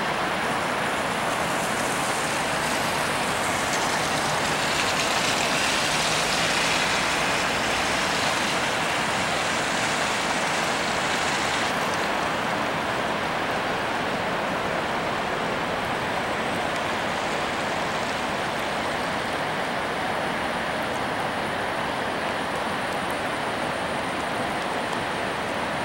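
Steady rushing of floodwater pouring through a hydroelectric dam's open spillway gates and churning in the river below, the dam discharging a major flood.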